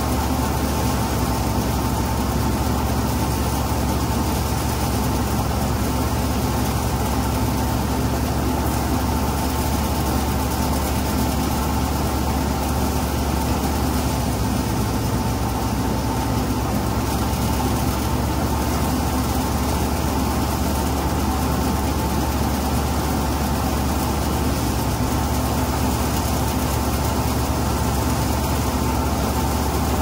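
Tractor-driven paddy thresher running steadily, a constant machine hum with an even pitch and no change in speed.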